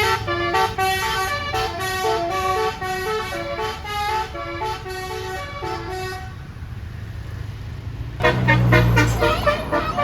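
Bus 'telolet' multi-note Basuri air horn playing a quick tune of short stepped notes, which stops about six seconds in. A low rumble follows, and about eight seconds in a louder burst of mixed sound starts.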